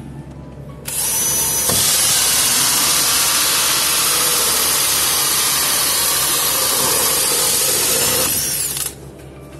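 Cordless drill driving a hole saw through the body of a rotating biological contactor unit, cutting a drainage hole. The steady cutting starts about a second in and stops abruptly near the end.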